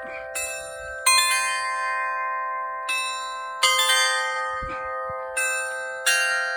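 A set of tuned bells plays a slow melody: about six notes struck one after another, often in pairs, each with a sharp attack and a long ring that carries on under the next note.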